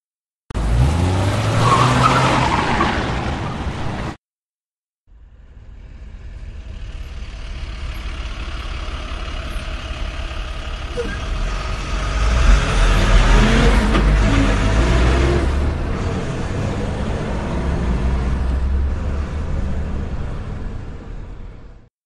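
Pickup truck engine revving and driving, with tyre and road noise. It cuts out briefly about four seconds in, then a longer stretch of engine rumble fades in and builds.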